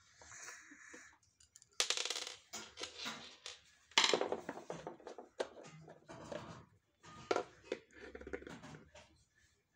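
Plastic clicks, knocks and rattles from a Samsung canister vacuum cleaner's housing as it is unscrewed and handled. The loudest knocks come about two and four seconds in.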